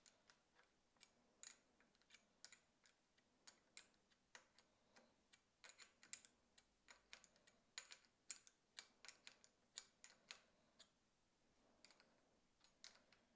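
Faint, irregular metallic clicks from a small open-end wrench on the clamp nut of a handlebar phone mount as the nut is tightened in short turns. The clicks come about two or three a second and are busiest in the middle.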